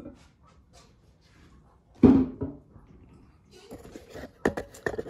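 Steel rocker arm parts of a Honda K-series VTEC valvetrain being handled: one thump about two seconds in, then several light metal clicks near the end.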